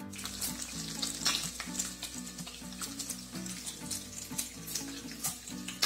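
Food sizzling as it fries in a wok, with a few sharp clicks from stirring. Background music plays underneath.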